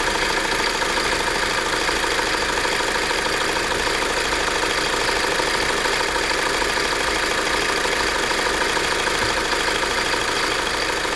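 Opel Astra H 1.8 XER four-cylinder petrol engine idling steadily, with no high whistle heard.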